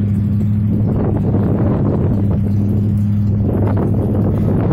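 A motor running steadily, giving a constant low hum with some rumble over it.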